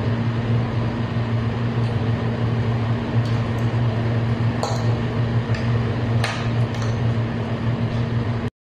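Steady low electrical hum, with a few light clinks of a spoon and fork against a plate as someone eats. The sound cuts off abruptly near the end.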